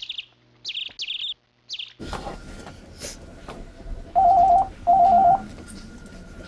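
A run of short, high bird-like chirps, one about every half second, then an abrupt change to room noise. A little over four seconds in, a desk telephone rings with a warbling electronic tone in the two-short-rings pattern of a British phone.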